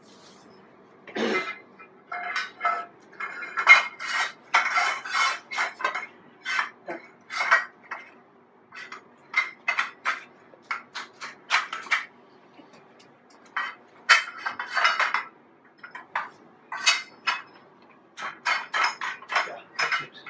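Zinc-coated steel stand bars clanking and rattling as they are slotted into the metal leg fixtures: a long run of short metal knocks and clinks, thickest about four seconds in and again around fourteen seconds.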